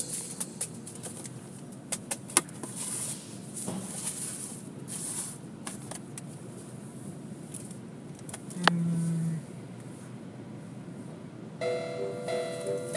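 Automatic car wash heard from inside the car: an even hiss of water spraying onto the windshield and body, with scattered sharp knocks and one short low hum a little before the end. Background music comes in near the end.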